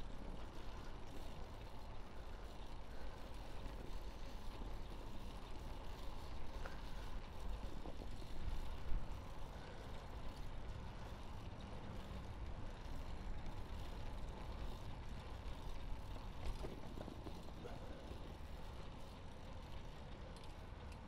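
Steady low rumble of road and traffic noise while riding a fixed-gear bicycle along city streets, with a few faint clicks and a brief louder bump about nine seconds in.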